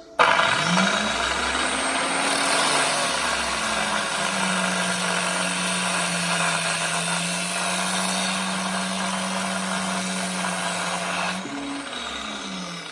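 Angle grinder mounted as a metal cut-off saw switched on and spinning up to a loud whine with a harsh hiss. About four seconds in its pitch drops and holds lower, as under cutting load; near the end it is switched off and winds down.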